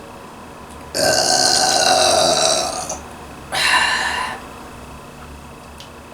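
A woman belching loudly twice from drinking soda: a long burp of about two seconds, then after a short pause a second, shorter one.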